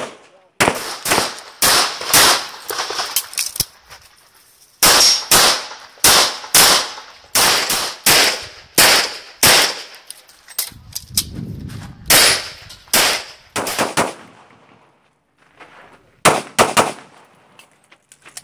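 Pistol shots fired in quick strings of several rounds each, broken by short pauses of a second or two.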